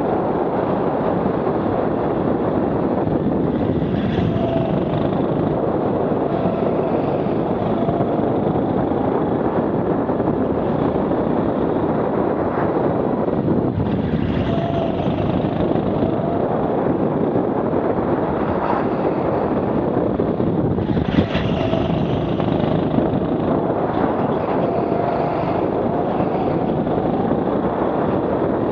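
Onboard sound of a rental go-kart lapping at speed, heard from a helmet-mounted camera: a steady rush of wind and running noise, with a faint whine that rises and falls as the kart speeds up and slows for the corners.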